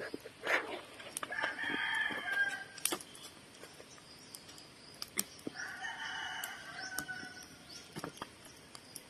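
A rooster crowing twice, each crow a held call of over a second, first about a second in and again past the middle. Scattered sharp pops and crackles from a fire of dry coconut fronds and husks.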